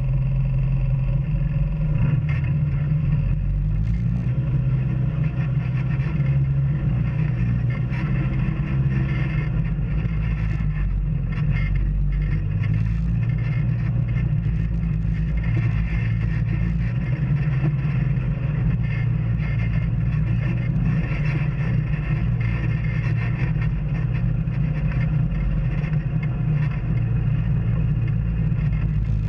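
Off-road vehicle engine running steadily, a low drone that stays level in pitch and loudness.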